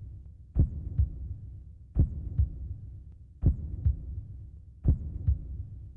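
Heartbeat sound effect: slow lub-dub double thumps, four of them, about one every second and a half, over a faint low hum.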